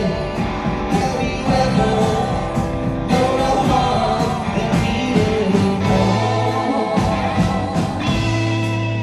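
Live rock band playing, with voices singing over electric guitar and keyboards; a low note is held through the last second or so.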